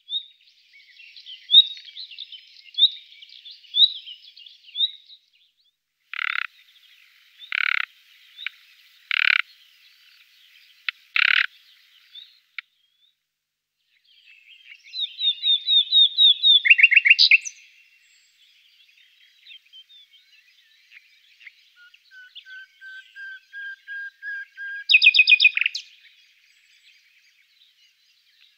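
Common nightingale singing: separate varied phrases, including four loud single notes spaced a second or two apart, a fast trill that swells to loud, and a run of slow whistles growing steadily louder that breaks into a rapid loud rattle near the end.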